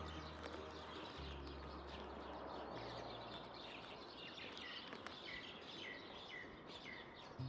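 A bird chirping: a run of short, falling chirps, about two a second, in the second half, over faint even outdoor noise.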